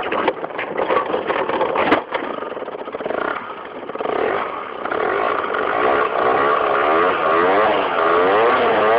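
Modified Peugeot 103 RCX moped's 50 cc two-stroke geared engine pulling away under hard throttle. It is choppy and uneven for the first few seconds, then settles into a steady run with its pitch rising and falling repeatedly.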